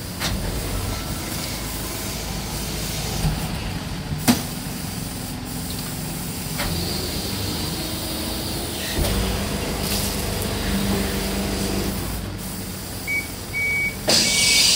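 Japanese rotary-plate garbage truck's packing mechanism running, with the truck's engine and hydraulics working as the plate sweeps the hopper, and a few sharp metal knocks. Near the end a loud hiss starts, along with an intermittent high warning beep.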